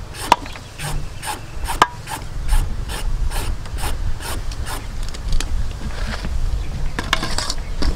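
A hand shredder rasping down a peeled green papaya in repeated scraping strokes, about two a second, with a couple of sharper clicks in the first two seconds.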